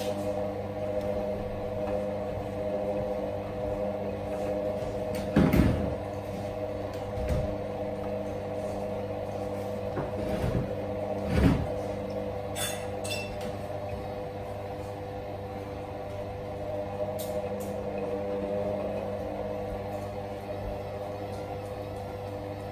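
Hotpoint WM63P washing machine drum tumbling a load of wet towels during a 60 °C cottons wash: a steady motor hum with a few soft thuds as the towels drop, the loudest about five and a half and eleven and a half seconds in, and a brief run of clicks soon after.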